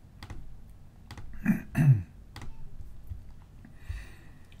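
A handful of separate computer keystrokes and mouse clicks, spaced irregularly. A brief low voice sound, like a throat noise, comes about one and a half seconds in and is the loudest thing.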